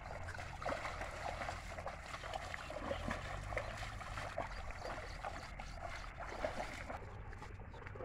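Muddy water splashing and sloshing as a pair of bullocks drag a plough through a flooded paddy field, their hooves and the ploughshare churning the water, with a few louder splashes; it gets a little quieter near the end.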